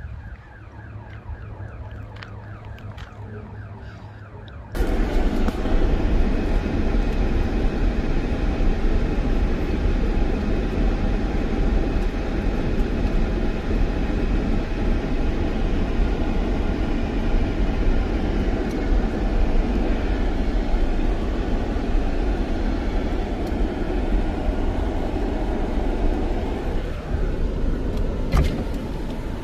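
Steady road and wind noise of a moving car, starting abruptly about five seconds in and running loud and even until shortly before the end. Before it, a fainter wavering high tone.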